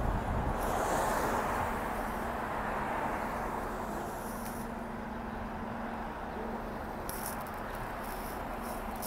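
City transit bus idling at a stop with a steady engine hum, and a few brief high-pitched rattly noises about 1 s in, about 4 s in and near the end.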